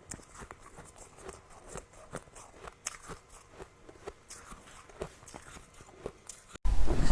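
Close-miked chewing of powdery freezer frost, with many small soft crunches and crackles. Near the end, after a brief dropout, much louder crunching starts suddenly.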